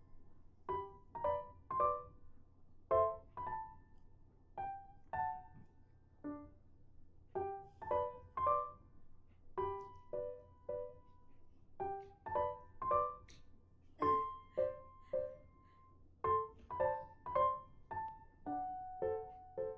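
Background piano music: a gentle melody of struck notes and light chords, a few notes a second, each ringing and fading.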